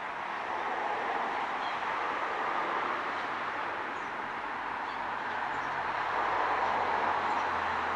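Steady rumble of distant vehicle traffic, swelling slightly near the end, with a low hum joining about five seconds in. A few faint, short, high bird chirps sound over it.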